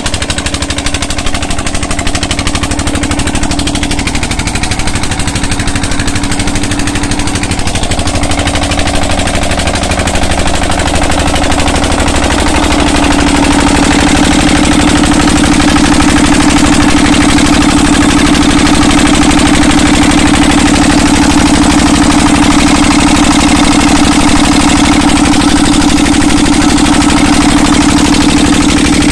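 Single-cylinder diesel engine of a tubewell pump running steadily, with a rapid, even stream of exhaust beats. Pumped water rushes into a concrete tank. The engine grows louder about halfway through.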